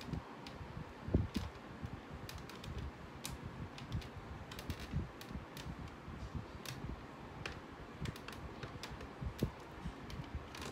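Irregular small clicks and taps of hard plastic as a Polly Pocket doll's arms and tiny guitar accessory are handled and fitted into place.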